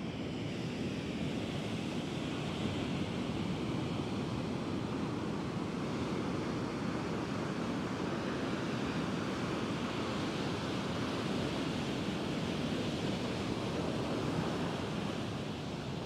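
Atlantic surf breaking and washing up a sandy beach: a steady rush of waves, with wind on the microphone.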